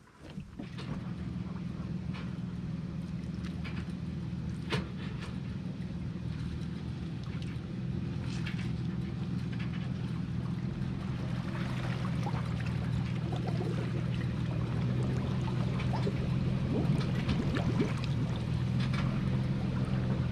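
Boat's outboard motor running steadily at low speed, growing slightly louder, with scattered light clicks and knocks over it.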